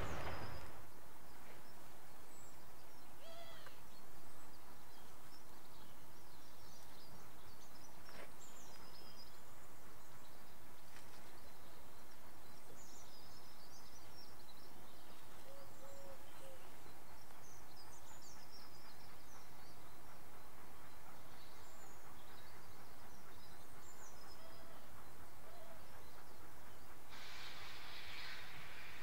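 A passing train fades away in the first second, leaving quiet outdoor ambience with scattered bird chirps and a brief low hoot about halfway through. Near the end a distant steam locomotive starts away, its cylinder drain cocks hissing steam.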